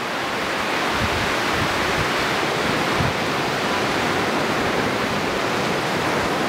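Ocean surf breaking on the beach: a steady rushing hiss, with a few short low thumps in the first half.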